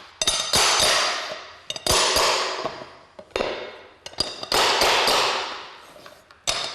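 Hammer striking a metal flooring pull bar several times, each blow ringing out and fading over about a second, tapping the last laminate plank tight into its joint.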